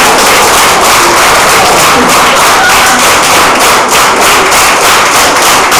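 A crowd of guests clapping hands together in a steady rhythm, fast and dense.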